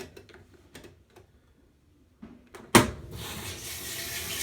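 Kenmore 80 series top-load washing machine being started: a few faint clicks from the controls, then a loud clunk about two and a half seconds in, after which water starts rushing into the tub as it begins to fill.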